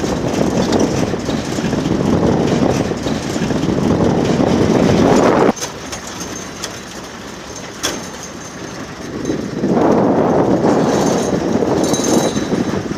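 Wind buffeting the microphone from a moving vehicle, over the vehicle's running noise on a dirt road. The rushing drops away suddenly about five seconds in, leaving a quieter rumble with a few clicks, and comes back loud near ten seconds.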